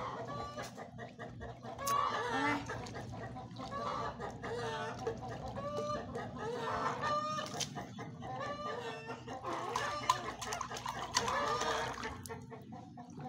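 Chickens clucking: a continual run of short, repeated calls.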